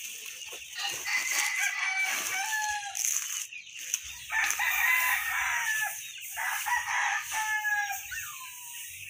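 Chickens calling: a run of short, overlapping clucks and crow-like calls, ending with one falling call near the end.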